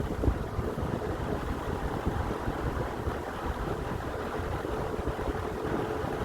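Large, powerful electric fan running at speed: a loud, steady rush of air, with blade wash buffeting the microphone and a faint steady motor hum.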